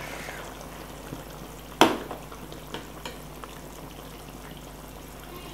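Metal ladle stirring a large pot of simmering beef curry gravy, with one sharp clink of ladle against pot about two seconds in and a couple of lighter knocks after.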